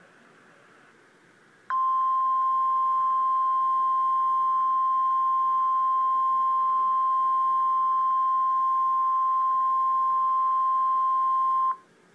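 Weather-radio emergency alert tone: a single steady, loud beep held for about ten seconds, starting about two seconds in and cutting off sharply near the end. It is the 1050 Hz warning alarm tone that signals an urgent warning, here a severe thunderstorm warning, is about to be read.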